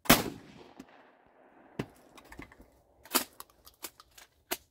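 A single blast from a 1972 Ithaca Model 37 Featherlite 12-gauge pump shotgun, with a long echo dying away over about a second and a half. Then a run of short, sharp metallic clicks and clacks, loudest about three seconds in, as the pump action is worked.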